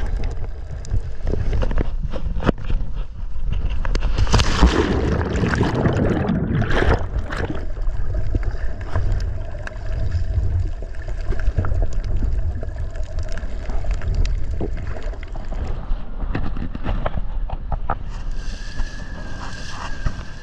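Muffled underwater rumble and gurgling from an action camera held under the sea while snorkeling, with a burst of splashing bubbles about four to seven seconds in. Near the end it cuts to wind and water rushing past a sailing catamaran.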